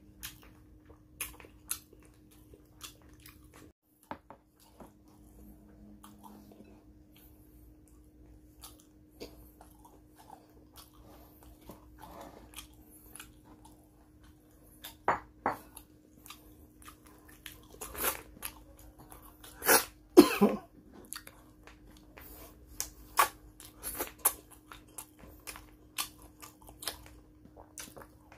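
Close-miked eating sounds: a person chewing and crunching on fried fish and crab with rice, with scattered sharp crunches and smacks. The two loudest come close together about twenty seconds in, over a faint steady hum.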